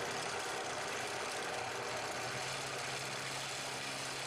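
Benchtop drill press running steadily as a 1/4-inch twist bit bores a pilot hole through a cardboard rocket body tube.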